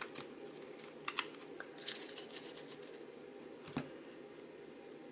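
Thick chrome-stock trading cards being handled and slid off a stack: faint scratchy slides and soft clicks, with one sharper tap a little before the four-second mark.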